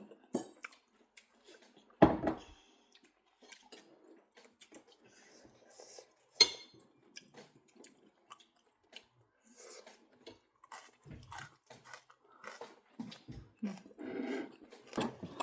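Plates and spoons clinking and knocking now and then during a meal, with a louder thump about two seconds in and a sharp clink a few seconds later.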